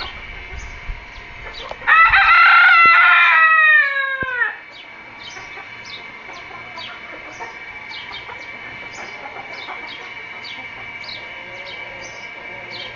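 A rooster crows once, loudly, about two seconds in; the crow is held for over two seconds and falls in pitch at the end. Short high chirps repeat throughout, about two a second, over a steady high tone.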